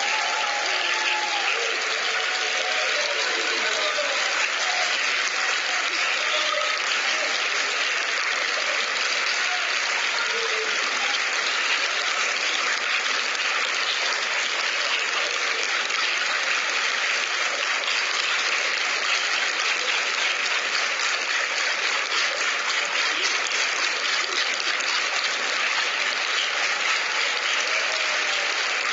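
A large audience applauding, dense and steady clapping throughout, with a few faint voices in the first few seconds.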